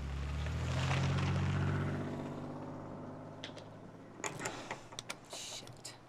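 A vehicle engine running, loudest about a second in and then fading away. Near the end come several sharp clicks and knocks.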